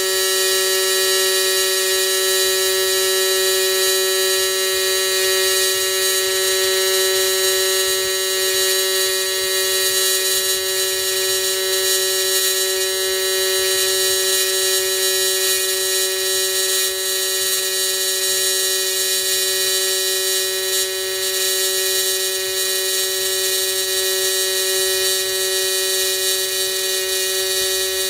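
Everlast 210EXT AC TIG welding arc on aluminum, set to the triangle waveform at an AC frequency of about 200 Hz: a steady, unbroken high-pitched buzz with many evenly spaced overtones.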